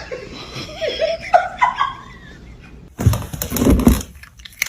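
A person laughing in short, rising bursts for about two seconds. About three seconds in comes a loud, noisy rustle or thump lasting about a second.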